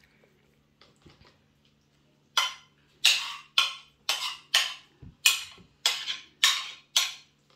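Metal spoon scraping across a china plate, pushing cabbage filling off it: about nine quick strokes roughly every half second, starting about two seconds in.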